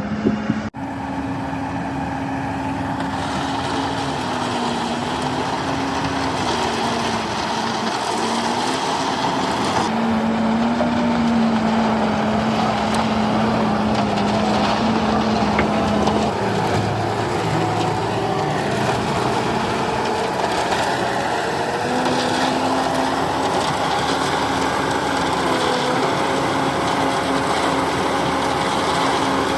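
Diesel engine of heavy construction machinery running, its speed wavering up and down. About halfway through it drops to a low idle, then picks up again some five seconds later.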